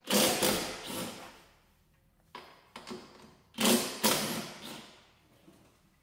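Cordless power tool run in several short bursts, each stopping and fading away, as it works on fasteners in the car's engine bay.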